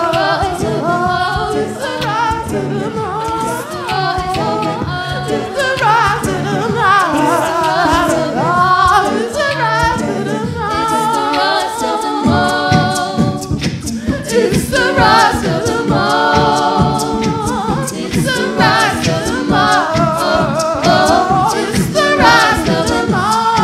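An a cappella group singing in harmony behind a male solo voice. A steady beat joins in about halfway through.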